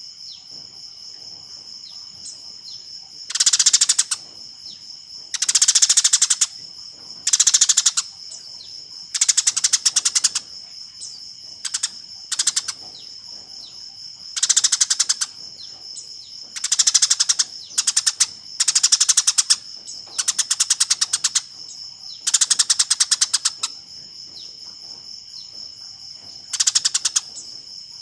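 Eurasian tree sparrows giving their fighting chatter: about a dozen loud bursts of rapid, stuttering chirps, each half a second to a second and a half long, with short pauses between. A steady high-pitched hum runs underneath.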